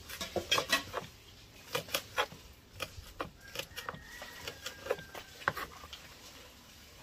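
Chef's knife chopping scallions on a wooden cutting board: quick knocks of the blade striking the board, thickest in the first couple of seconds, then sparser and dying away near the end.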